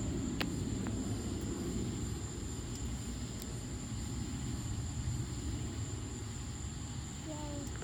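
Low rolling thunder rumbling steadily and slowly dying away.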